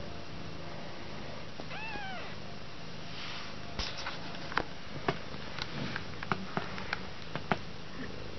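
A newborn kitten mews once, a short high cry that rises and falls, about two seconds in. Over the second half comes a run of irregular sharp clicks and taps, with a steady low hum underneath.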